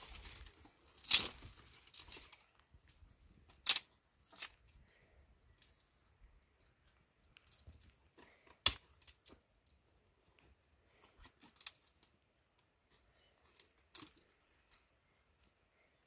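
Dry twigs and brushwood being snapped and handled while a fire is laid: a handful of sharp cracks spread through, the loudest about a second in, among light rustling and crackling.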